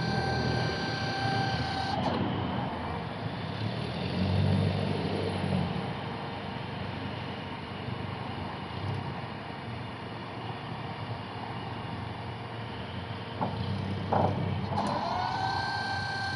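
Electric forklift working: a steady electric motor whine for about the first two seconds stops, and a steady rushing noise runs on. The whine returns near the end, gliding briefly in pitch as it settles.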